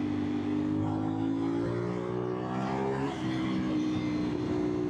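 CFMOTO 450SR's parallel-twin engine pulling under throttle through an aftermarket slip-on exhaust. Its note rises steadily for about three seconds, then drops sharply as with a gear change, and holds steady afterwards, with wind rushing past.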